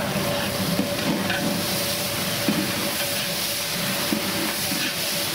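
Green chilies, bay leaves and whole spices sizzling in hot oil in a large aluminium pot, with a long metal ladle stirring through them. A steady faint hum runs under the sizzle.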